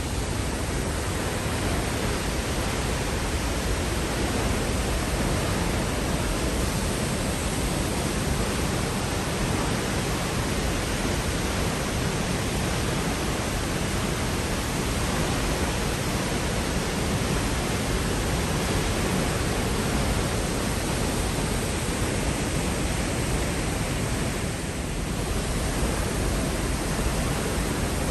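Peričnik waterfall in heavy flow after rain, a steady loud roar of falling water.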